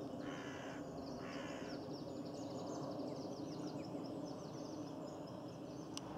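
A crow-family bird cawing twice in quick succession. A small songbird sings a fast, chattering run of high notes over it, with a steady low hum of background noise throughout.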